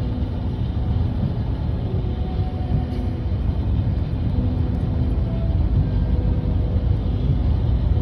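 Steady low rumble of road and engine noise heard inside a moving vehicle.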